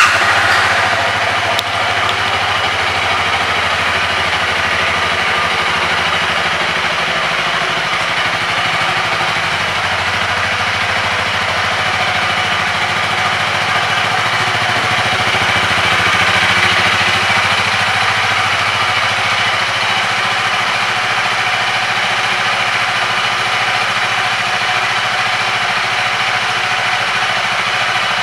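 Honda Rebel 300's single-cylinder four-stroke engine idling steadily, just after being started.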